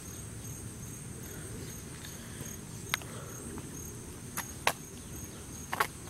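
Steady high-pitched insect chirping over a low, even rush of shallow water, broken by a few sharp footstep clicks: one about three seconds in, two close together around four and a half seconds, and one near the end.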